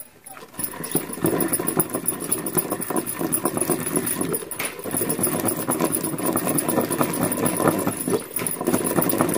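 A long wooden pestle pounding soft tomatoes with chilli and peanut powder in a stone mortar: a steady run of dull thuds, starting about half a second in.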